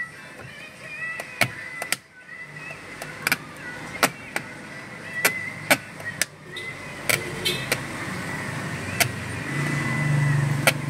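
Sharp plastic clicks and snaps, about ten in all and irregularly spaced, as the glass of a Hyundai Elantra's power side mirror is pressed and worked onto its mount by hand. A low hum swells about a second before the end.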